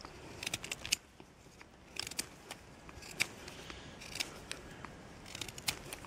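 Small Victorinox Swiss Army knife blade whittling a wooden stick to a point: a series of short, faint scraping cuts with pauses between. The blade is dull and badly needs a whetstone.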